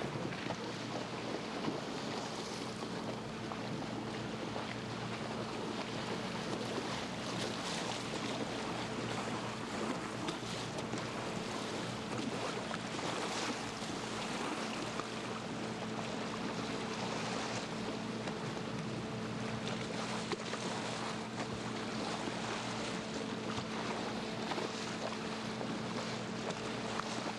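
A boat's engine running steadily with a constant hum, under wind on the microphone and water noise.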